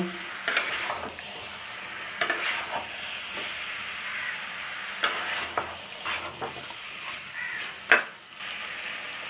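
Chicken and potato pieces in a thick spice masala sizzling in a metal pan while being dry-fried down (kosha). A metal spatula stirs them, scraping and knocking against the pan at irregular moments, with one sharper knock near the end.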